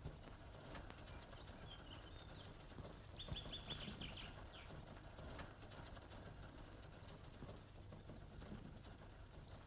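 Faint bird chirps over the steady hiss of an old film soundtrack, with a quick run of about five chirps a little after three seconds in.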